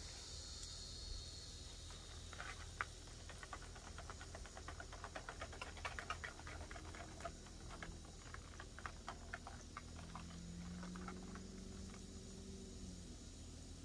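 Faint, irregular clicks and crackles, several a second, while shrimp and chicken cook on a Blackstone flat-top griddle and a spoon works in a small cup; they thin out after about ten seconds.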